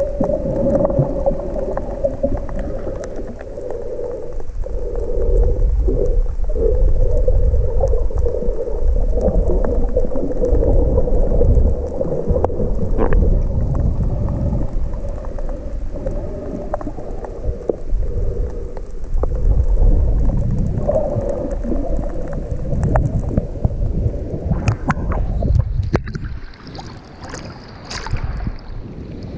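Rough sea surf churning and sloshing close around the microphone: a deep, muffled rumble with little treble. About 24 s in it thins and sharper splashes come through.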